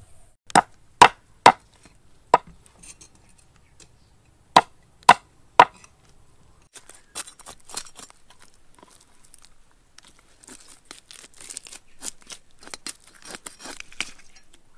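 Cleaver chopping down onto a wooden chopping board: seven loud, sharp chops, four then three. These are followed by a long run of lighter, quicker taps and scraping as the blade works over a fish on the board.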